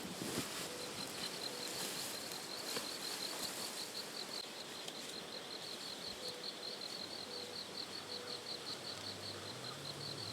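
An insect chirping in a fast, even pulse of about five chirps a second over a steady outdoor hiss.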